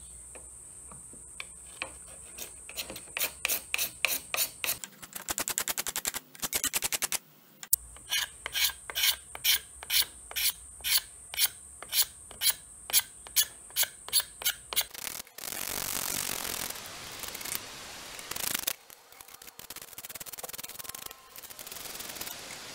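A card scraper being drawn over a wooden saw handle to strip its old lacquer: hand strokes in a steady rhythm of about two a second, then longer continuous passes from about fifteen seconds in. A steady high whine sounds underneath during the first half.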